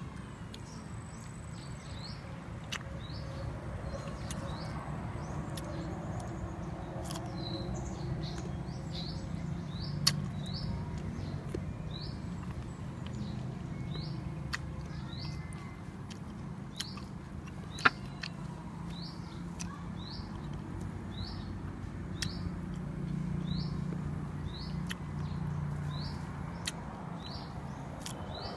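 A bird repeats a short high chirp about once a second over a low steady hum. A few sharp clicks stand out, the loudest about ten seconds in and again near eighteen seconds.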